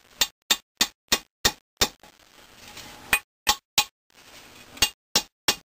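A dozen or so sharp metal taps, about three a second in short runs, with faint scraping between: a screwdriver worked against the crankcase of a Maytag model 72 twin-cylinder engine.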